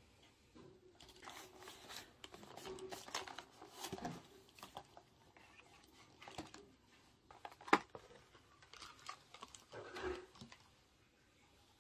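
Thin clear plastic clamshell container being handled, crinkling and clicking as a paper sleeve is slid off it. One sharp snap a little past halfway through as the lid is pried open.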